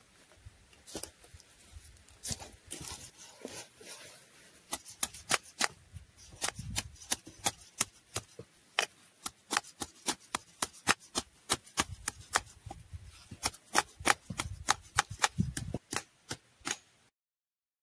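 A knife chopping on a board in quick, irregular sharp strokes, a few a second, with a few soft thumps of handling among them. It stops abruptly near the end.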